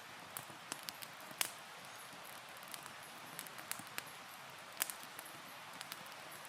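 Wood campfire crackling: irregular sharp pops and snaps over a steady hiss, with louder pops about a second and a half in and near five seconds.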